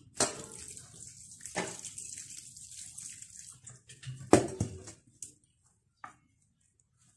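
Water poured from a metal kettle onto couscous grains in a clay dish, a steady hissing pour lasting about three and a half seconds while a wooden spoon works the grains. Two knocks fall during the pour, the louder about four seconds in, followed by light scraping and a few small taps.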